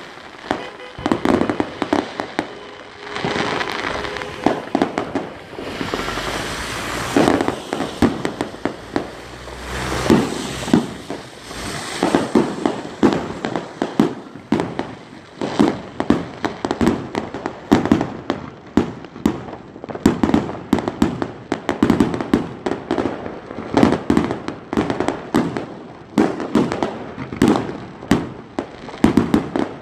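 Aerial fireworks going off in a rapid, uneven string of bangs and crackles, several a second, with stretches of hissing between the louder reports.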